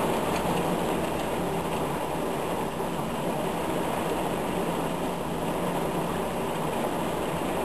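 Heavy rain pouring down in a thunderstorm: a steady, even hiss and rush of water.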